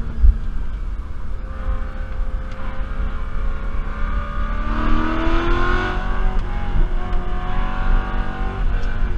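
BMW E92 M3's V8 engine driven hard on a race track, its pitch climbing sharply about five seconds in as the car accelerates.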